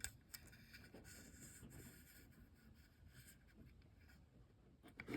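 Faint light scratching and rustling from hands handling small pieces, with a small click at the start; otherwise near silence.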